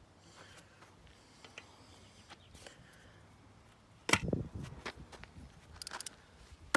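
A loud thud about four seconds in, with a short rattling clatter after it, then a few light clicks and taps.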